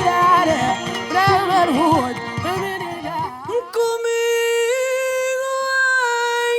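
Music: a melismatic singing voice with ornamented, sliding pitch over instrumental accompaniment, then from about halfway one long held note alone that breaks off near the end.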